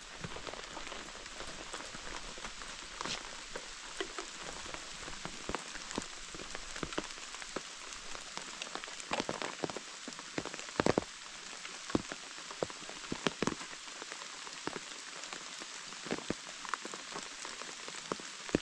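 Steady rain falling, with frequent sharp taps of drops striking close by, a few louder taps near the middle.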